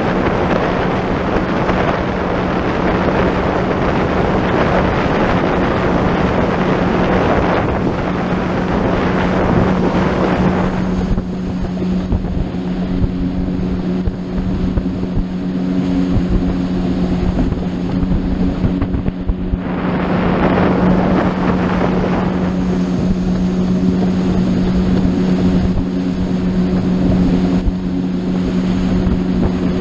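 Boat engine running steadily under way, a constant hum, with wind buffeting the microphone and water rushing past. The wind and water noise drops back for several seconds in the middle, then comes back strongly.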